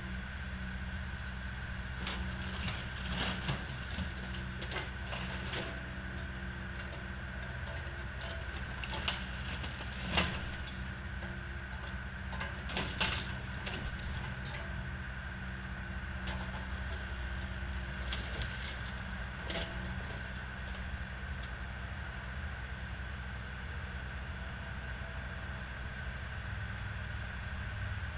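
Compact excavator running steadily while it tears apart a mobile home's wood framing and siding. Sharp cracks and crunches of splintering wood and bending panels come in scattered bursts, loudest about nine to thirteen seconds in.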